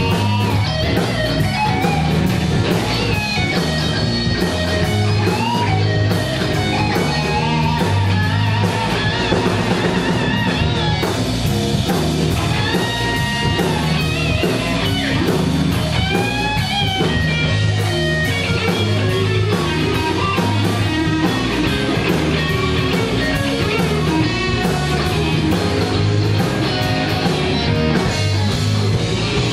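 A live electric blues band playing an instrumental stretch of a shuffle: electric guitars, bass guitar and a drum kit. A lead guitar line bends up and down in pitch over the steady bass and drums.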